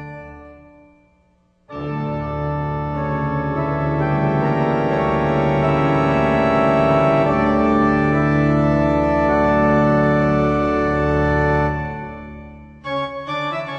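Organ music: a chord dies away, then about two seconds in a loud sustained organ chord comes in suddenly and holds, fading out about twelve seconds in. Shorter, choppier organ notes start near the end.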